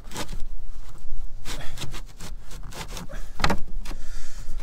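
A fibre cement roof slate scraping and knocking against the neighbouring slates in several short strokes as gloved hands push and settle it into position.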